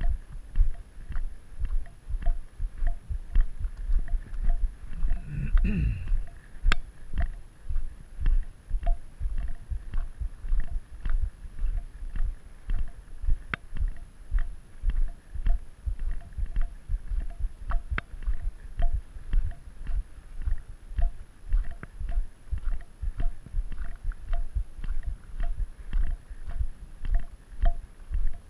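Footsteps crunching on a gravel road at an even walking pace, about two steps a second, each step a dull thump with a light grit tick, picked up by a GoPro carried by the walker.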